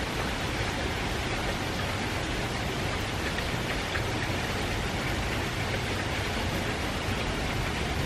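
Steady rain from a typhoon passing offshore: an even hiss with faint scattered drop ticks, unchanging throughout.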